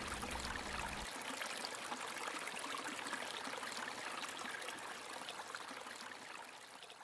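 Shallow rocky creek flowing, a steady rushing trickle of water that fades out near the end.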